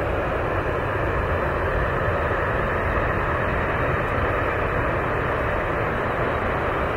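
Boeing 747 on approach with its landing gear down: the steady rushing noise of its four turbofan engines, holding an even level throughout.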